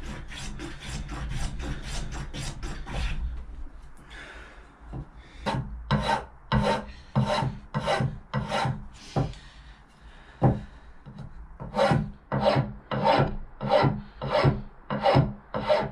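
A regular hand file rasping back and forth across the edges of a small wooden block. It starts with quick, short strokes for a few seconds, then after a short lull settles into slower strokes about one and a half a second, with a brief pause in the middle.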